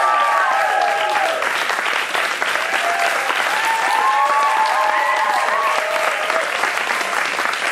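Audience applauding, with cheering voices rising over the clapping at the start and again about three seconds in.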